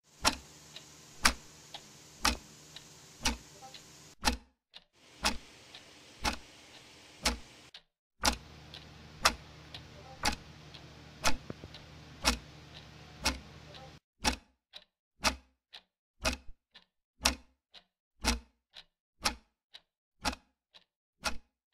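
Clock ticking steadily about once a second, with a softer tick between the louder ones, over a low steady hum. The hum cuts off about two-thirds of the way through, leaving the ticking alone.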